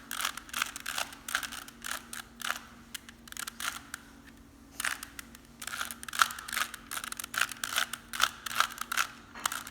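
Rubik's cube being twisted by hand: quick runs of plastic clicks and clacks as the layers turn, with a short pause about four seconds in.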